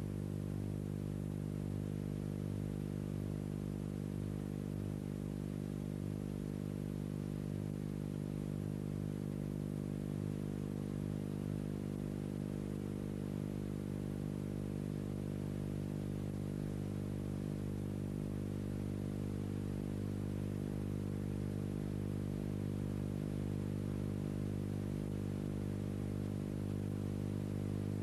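Steady low drone of a helicopter's engine and rotor, heard from the aircraft, unchanging in pitch and level, with a faint regular pulsing underneath.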